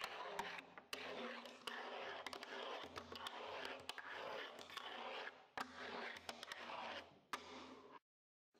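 A fingerboard rolling over a fingerboard ramp: its small wheels make a steady scraping rumble, broken by many sharp clicks as the board is popped and lands tricks. The sound cuts off suddenly near the end.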